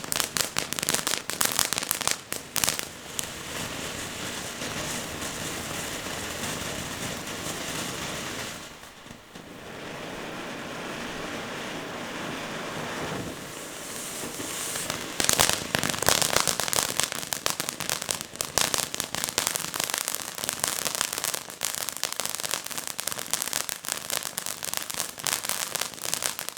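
Firework fountain burning: dense crackling at first, then a steady hiss that dips briefly about nine seconds in, and dense crackling again from about fourteen seconds in until it cuts off at the end.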